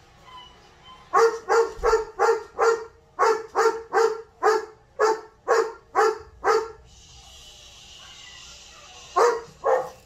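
Long-coated German Shepherd barking, a run of about a dozen deep barks at roughly two a second. A steady hiss follows for about two seconds, then two more barks near the end.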